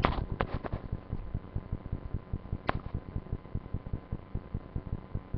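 Camera handling noise: rapid, irregular low rumbling and rubbing against the microphone, with a few sharp clicks just after the start and one about two and a half seconds in.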